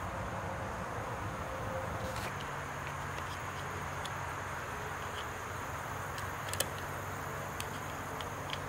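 Steady background hum and hiss, with a few faint, scattered small clicks as a steel bicycle brake cable and its fittings are handled and fed into the brake lever.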